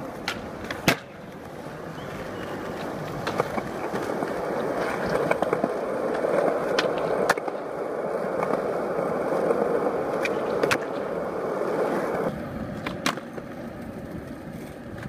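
Skateboard wheels rolling over concrete, swelling through the middle and dropping off near the end, with several sharp clacks of the board striking the ground.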